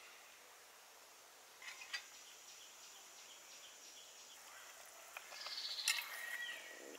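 A metal ladle and chopsticks clinking and scraping against the pot as shrimp soup is stirred and ladled: a few light knocks a little under two seconds in, then a busier run of clinks and a scoop of broth near the end, the loudest moment. Faint bird chirps behind it.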